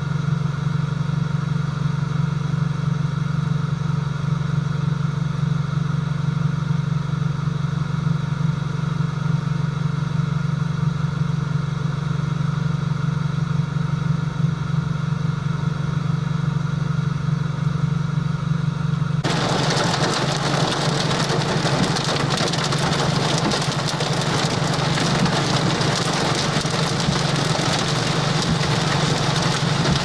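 Car engine idling with a steady low hum; about two-thirds of the way through, heavy wind-driven rain suddenly begins pelting the car, adding a loud, even hiss over the engine.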